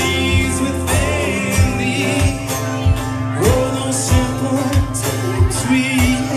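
Live band playing a song: a man singing over guitars, with a steady drum beat.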